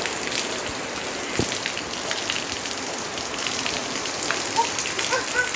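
Steady rain falling and splashing on surfaces, with a few sharper individual drops or knocks standing out.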